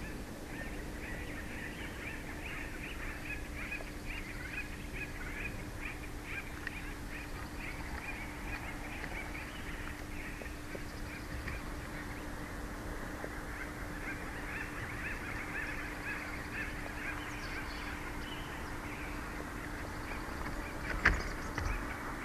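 Bald eagles calling at the nest: long runs of rapid, high chirping notes, with a short lull in the middle. A single sharp knock near the end.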